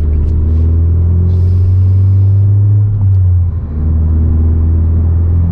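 Honda Civic Si's turbocharged 1.5-litre four-cylinder with an aftermarket downpipe and street exhaust, heard from inside the cabin, running as a steady low drone under moderate acceleration. Its pitch climbs, drops briefly about three seconds in as with a gear change, then climbs again.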